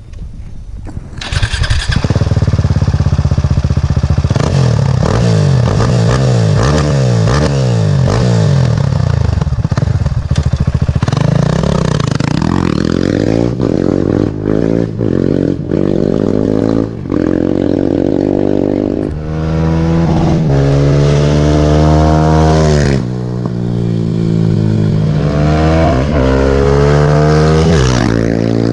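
Husqvarna 701 Supermoto's single-cylinder engine accelerating hard from about two seconds in, the revs climbing and dropping back again and again through a series of gear changes as the bike rides off and comes back.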